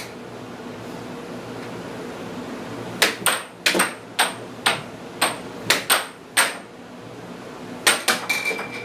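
Air hockey puck clacking against the plastic mallets and table rails in a fast rally, about ten sharp clacks in quick succession, then a few more near the end, over the steady hiss of the table's air blower. A steady high tone starts just before the end.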